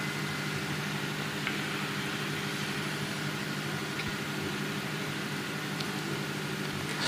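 Steady low hum and hiss with a few faint ticks.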